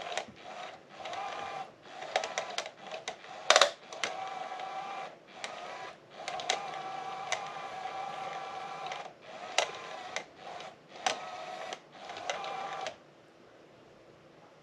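Small electric motor of a Smartykat Hot Pursuit cat toy whirring in stop-start runs of a second or two, with clicks where it starts and stops and one sharper click about three and a half seconds in; it stops about thirteen seconds in.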